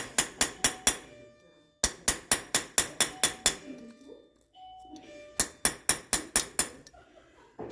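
Hammer striking a steel drift to drive out a Land Rover Discovery 2 front hub: three quick runs of sharp, ringing metal blows, about four a second, with short pauses between the runs.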